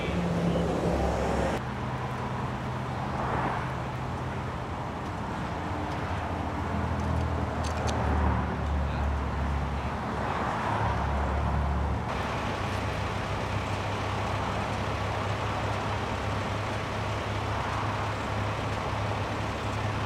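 Steady low hum of an idling engine with freeway traffic passing in swells every few seconds; the background changes abruptly twice, at edits.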